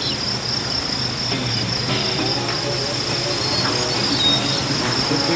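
All-terrain vehicle running along a rough dirt trail: a low engine hum and ride noise, with a thin, high-pitched whine that stays steady throughout.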